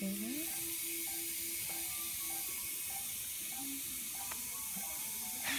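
Surgical motor handpiece running as it unscrews a titanium fixation screw from the jaw, a steady high whir and hiss. Short beeps sound behind it about every 0.6 s.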